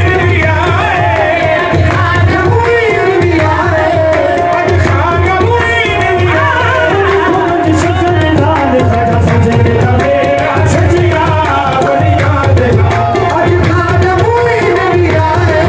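Qawwali music: a singer's voice carries a gliding, ornamented melody over held harmonium notes and a steady tabla rhythm.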